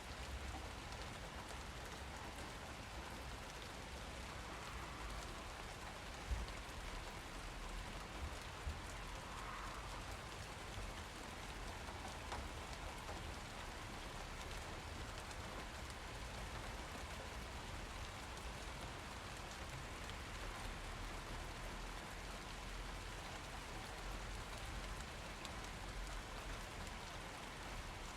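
Steady rain falling, an even hiss of drops, with a few sharper taps about six and eight to nine seconds in.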